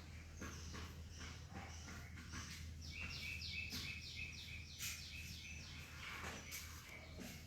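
A small bird singing a run of about ten quick chirps in a row, each a short falling note, for about three seconds in the middle. Scattered light taps and clicks and a steady low hum sit underneath.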